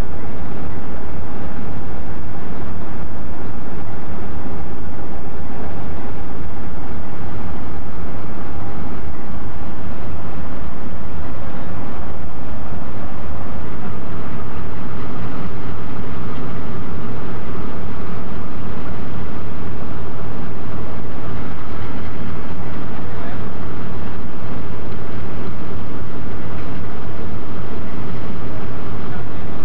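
Diesel-electric locomotives' engines running steadily close by, a loud, unchanging low drone.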